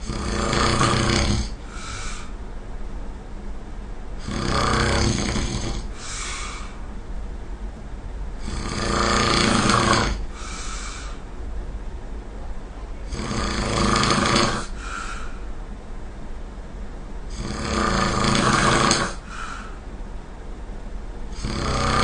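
A person snoring loudly in a steady rhythm: five long rasping snores about four seconds apart, each followed by a short, fainter breath, with a sixth snore starting at the very end.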